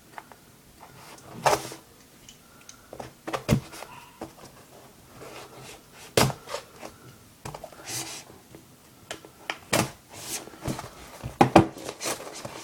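Cardboard shipping box being handled and pried at in an effort to open it: a string of separate knocks and thunks with scraping in between.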